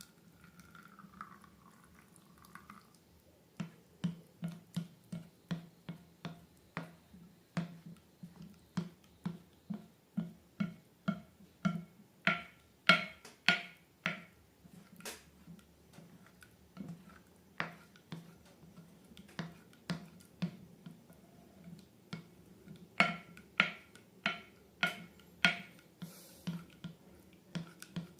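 Slime being squeezed and pressed by hand, making a steady run of sharp clicking pops about twice a second, louder in runs near the middle and near the end. A brief squeak comes in the first few seconds.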